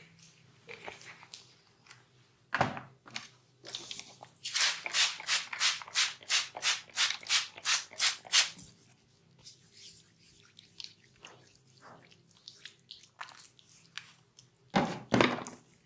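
Hands working over a person's body during a massage. In the middle comes a regular run of about a dozen quick strokes, about three a second. A single sharp stroke comes a few seconds in, and a louder cluster near the end.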